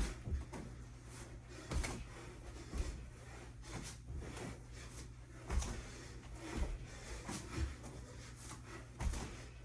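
Person doing burpees: dull thuds of hands and feet landing on the floor, irregular at about one a second, with hard breathing between them.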